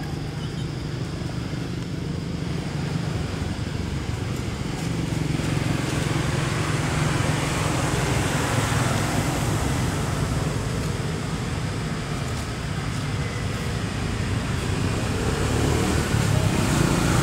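Steady background noise of road traffic, a low engine rumble that swells about five seconds in and again near the end.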